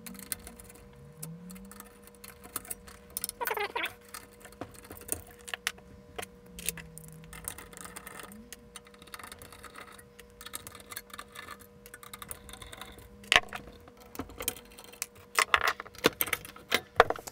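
Screwdriver working small screws out of a metal chassis plate, with irregular clicks and clinks of metal parts being handled and a brief squeak about three and a half seconds in; the clatter grows denser and louder near the end.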